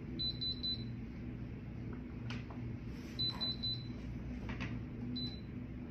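Heat press digital control panel beeping: a quick run of about four short high beeps, another run a few seconds later, then a single beep, typical of buttons being pressed to set the press timer. A steady low hum and a few faint clicks of handling run underneath.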